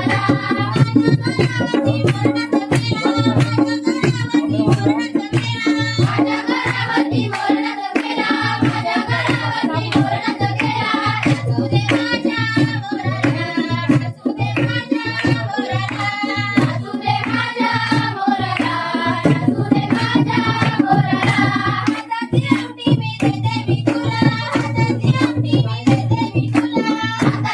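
Marathi folk song sung to a steady hand-drum beat, the singing voices carrying the melody over quick, even drum strokes.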